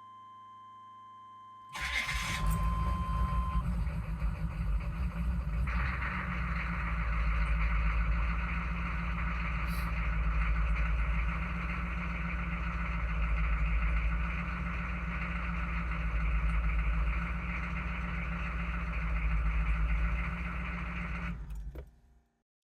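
A steady high tone sounds as a GM 6.5-litre turbo diesel V8 cranks and fires right up about two seconds in, then runs at a steady idle for nearly twenty seconds before it is shut off near the end. This is the easy second start after the shut-off-and-restart, which the owner ties to a faulty inexpensive pump mounted driver (PMD).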